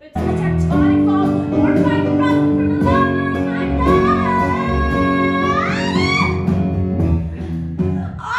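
A woman singing a musical-theatre number into a microphone over live band accompaniment. The music starts abruptly, and her voice rises in pitch about six seconds in.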